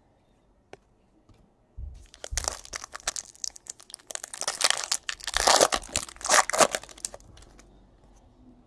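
Foil wrapper of a Bowman Chrome baseball card pack being torn open and crinkled by hand: a dense run of sharp crackles that starts about two seconds in, lasts about five seconds and dies away.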